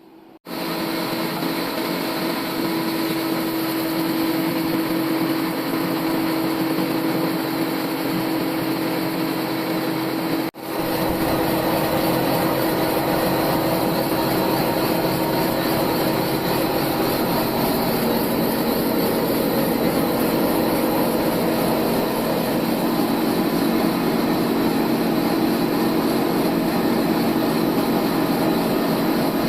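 Old band sawmill running steadily as it saws a 4-inch slab from an oak log, a continuous machine noise with a few held tones. The sound drops out for a split second about ten seconds in.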